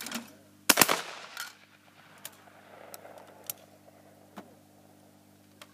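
A shotgun fired at a clay target: two sharp cracks a fraction of a second apart just under a second in, with echo dying away over the next couple of seconds, then a few faint clicks.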